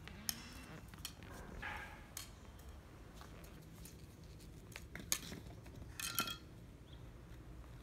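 Scattered sharp taps and clinks of hard things striking stone paving, a few strikes spread over several seconds, the loudest about five seconds in and a short ringing clink about six seconds in.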